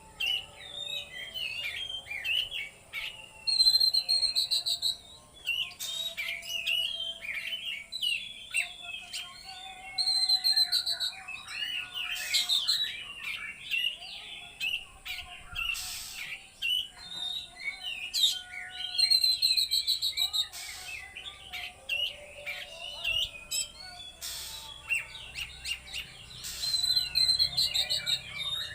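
Oriental magpie-robin (kacer) singing without pause in rapid, varied chattering phrases broken by buzzy trills, the fast 'trotol' style of delivery.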